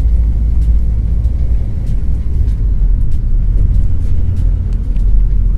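Steady low rumble of a car driving on a paved road, engine and tyre noise heard from inside the moving vehicle.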